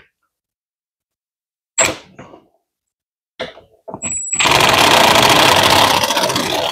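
Milwaukee M18 1/4-inch hex cordless impact driver tightening a bolt: a short blip about two seconds in and a few clicks, then from about four seconds in a loud, steady run of rapid hammering as the impact mechanism drives the bolt home.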